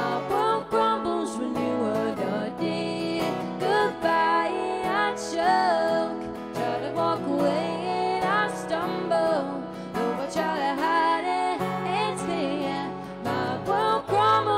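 A woman singing a slow melody over her own acoustic guitar chords, in a live solo performance.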